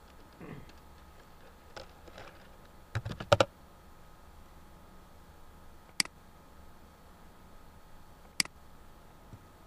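A quick run of computer keyboard keystrokes about three seconds in, the loudest sounds, followed by two single sharp mouse clicks, about six and eight and a half seconds in.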